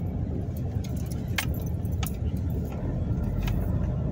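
Steady low rumble of a car driving slowly over a rough, patched street, heard from inside the cabin, with a few sharp clicks and rattles from inside the car.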